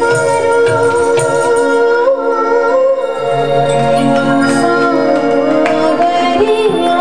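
A woman singing long held notes with slow glides between them, accompanied by a harmonium.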